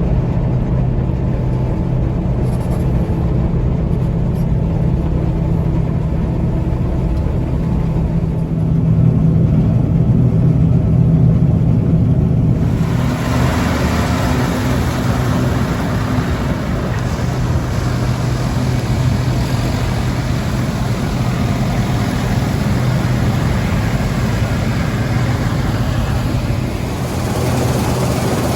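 Diesel engines of farm harvest machinery running steadily with a low hum. About halfway through, a louder, hissier mechanical clatter suddenly joins in.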